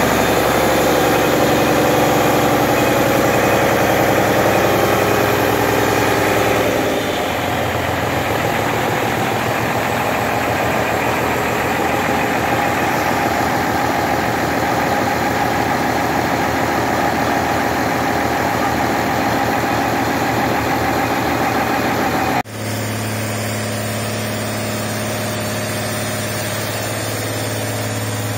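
Mercedes-Benz OM366 turbo-diesel straight-six running steadily on a dynamometer stand. The drone eases slightly about seven seconds in. After about twenty-two seconds the sound changes abruptly to a lower, smoother hum.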